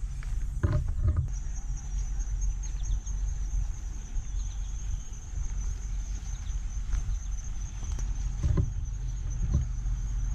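Footsteps through grass over a low rumble of wind and handling on the microphone, with a few soft thumps. A high, rapidly pulsing insect trill sets in about a second in and carries on steadily.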